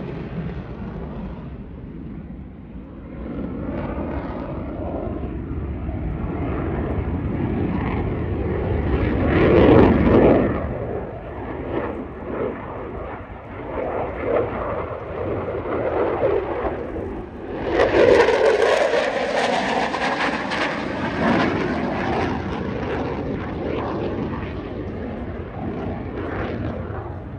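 An F-16 fighter's Pratt & Whitney F100 turbofan in afterburner during a display. The jet noise rises and falls as the aircraft manoeuvres, loudest about ten seconds in and again near eighteen seconds, when a sharp hiss comes in suddenly and then slowly fades.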